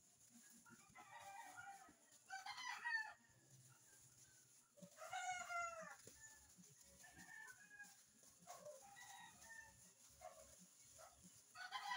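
Faint rooster crowing: three calls, the longest and loudest about five seconds in, another near the end.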